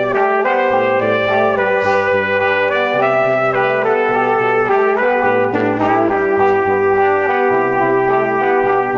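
Background instrumental music: held notes over a low bass line that changes every second or so.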